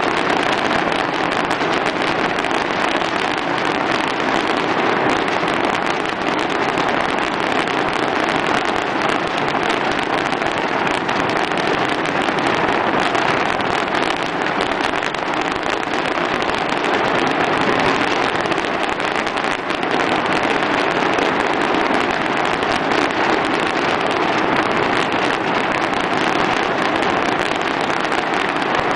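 Fireworks crackling and bursting in a dense, unbroken barrage, a steady loud crackle with no pauses.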